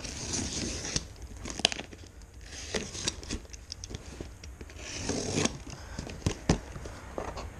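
A box cutter slitting the packing tape on a cardboard shipping box: tape tearing and blade and cardboard scraping in a few stretches, with several sharp clicks and taps.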